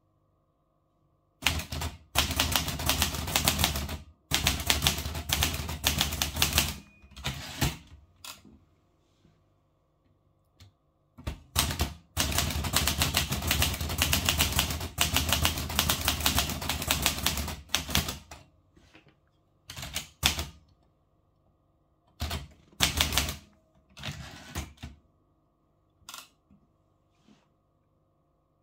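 Olivetti Lettera 32 manual typewriter being typed on: fast runs of key strikes lasting several seconds, then shorter clusters of keystrokes, with quiet pauses between.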